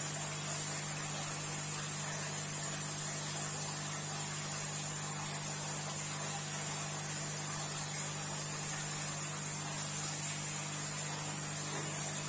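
Steady electrical hum with a constant hiss from running aquarium equipment (filters and air pump), unchanging throughout.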